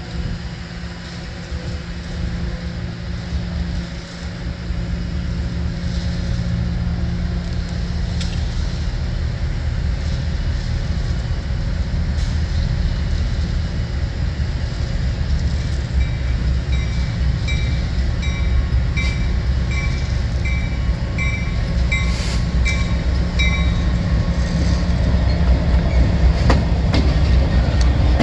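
Norfolk Southern EMD GP60 diesel locomotive, a 16-cylinder two-stroke, approaching and drawing up close, its engine rumble growing steadily louder. From about halfway in, a grade-crossing warning bell dings about once a second for several seconds.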